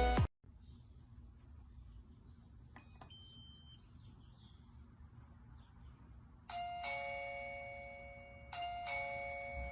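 An electronic doorbell chime sounds a two-note ding-dong twice, about two seconds apart, each pair of notes ringing out and fading slowly. Just before, music cuts off at the start and a faint short electronic blip is heard.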